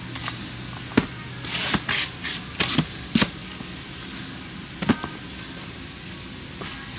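Firework packaging being handled: three sharp knocks and a run of short rustling scrapes about a second and a half in.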